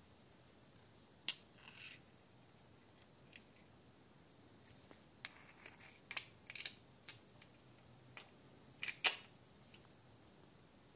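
Metal parts of a pneumatic drill's air motor clicking and tapping against each other as they are handled and fitted together: a sharp click about a second in, a run of lighter clicks around the middle, and the loudest click near the end.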